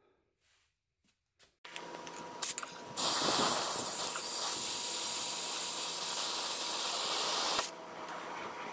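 Hose spray nozzle spraying water hard at the drain opening under an air compressor tank, flushing rust and dirt out of the tank. It is a loud, even hiss that starts sharply about three seconds in and cuts off about four and a half seconds later, over a steady background hum.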